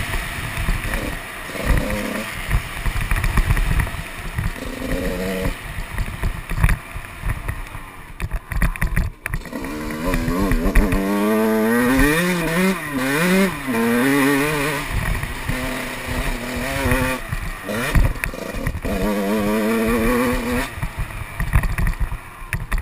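Motocross dirt bike engine revving up and easing off over and over, its pitch climbing and dropping in quick runs, over heavy low wind buffeting and knocks on the microphone.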